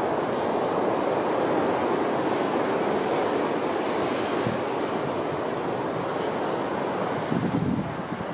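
Steady rushing noise of wind and surf, with the walker's footsteps on the path repeating about every two-thirds of a second.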